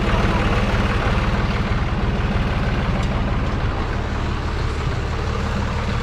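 Zetor 5245 tractor's diesel engine running steadily at low revs, with an even throb.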